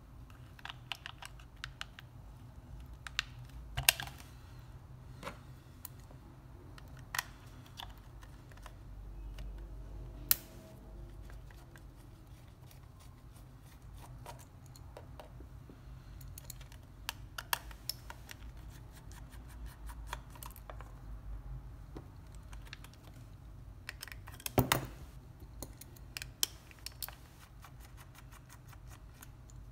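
Scattered small clicks and taps of a PlayStation 4 DualShock 4 controller's plastic shell being handled and its back-case screws undone with a small screwdriver, with a few sharper knocks about 4, 10 and 25 seconds in, over a steady low hum.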